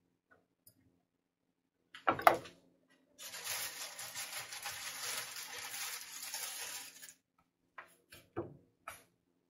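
A single sharp knock, then about four seconds of steady rushing hiss that stops abruptly. Near the end come a few short chops of a chef's knife through Brussels sprouts on a wooden cutting board.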